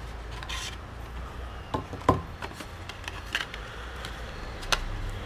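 Scattered clicks and light knocks of small computer parts being handled on a work surface, about half a dozen in all, the sharpest about two seconds in, over a low steady hum.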